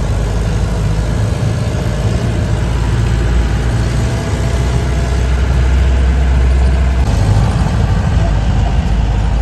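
Jeep engine running with a steady low rumble that swells slightly partway through.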